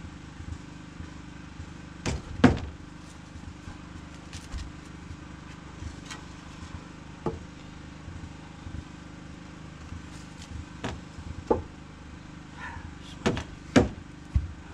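Irregular wooden knocks and thuds as fire-charred log-round deck blocks and the plank deck frame are shifted and set in place by hand, the loudest knock about two and a half seconds in and a cluster near the end.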